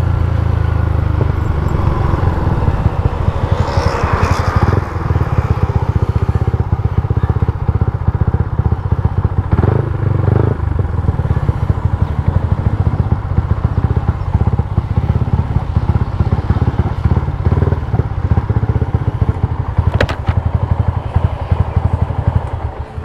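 Yamaha Y15ZR's freshly rebuilt 150 cc single-cylinder four-stroke engine running steadily under way, a low pulsing exhaust note heard from the rider's seat. The engine note falls away just before the end as the bike comes to rest.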